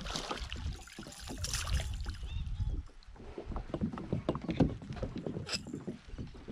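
Irregular knocks, taps and splashing in and against a kayak as a hooked traíra is brought aboard.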